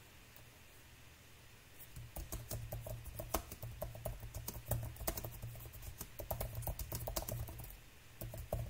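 Typing on a computer keyboard: a quick run of key clicks that starts about two seconds in and stops shortly before the end.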